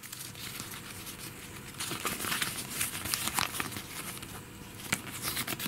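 Paper crinkling as a folded spec sheet is handled and unfolded: irregular crackles, busier from about two seconds in.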